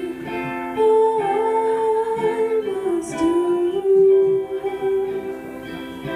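Live acoustic song: a woman's voice holds long, sliding notes without clear words, like humming, over a plucked acoustic string instrument.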